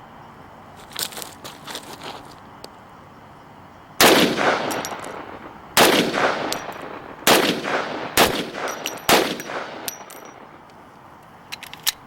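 Five loud gunshots from a firearm, fired one to two seconds apart, each followed by a long echo. A few fainter sharp cracks come before them.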